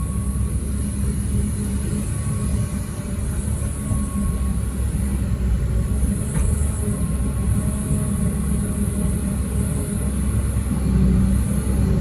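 Heavy diesel machinery running steadily: a constant low rumble with a steady high hiss above it.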